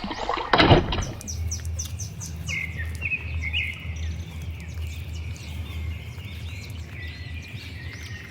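Small birds chirping repeatedly, with a loud brief rushing burst a little over half a second in, followed by a steady low hum.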